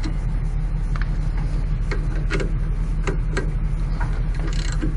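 Socket ratchet clicking in short, uneven runs of ticks while snugging the brake caliper bolts back up, over a steady low hum.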